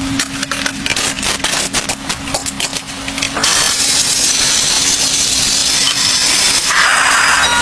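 Wood cracking and snapping in quick, irregular cracks for about three seconds, then a steady hiss for the rest.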